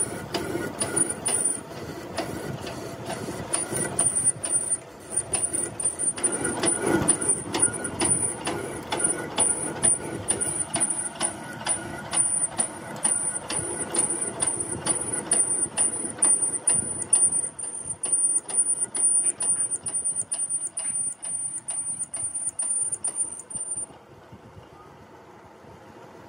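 A workshop machine running with a steady high whine and a regular knock about twice a second. It stops abruptly near the end, leaving a quieter hum.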